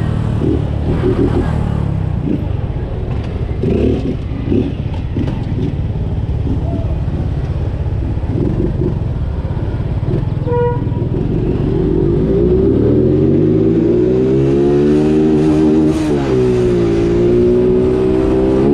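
Honda Biz motorcycle's single-cylinder engine while riding. A steady low rumble with some clatter comes first; a little past the middle there is a short beep, then the engine rises in pitch as it accelerates, dips briefly and holds a steady drone.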